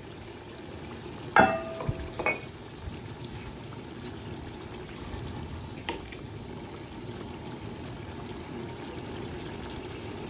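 A pot of curry simmering over a fire, a steady bubbling hiss. About a second and a half in there is a loud ringing metal clank as the aluminium pot lid is set down, then a smaller clink just after. There is a faint tap near the middle.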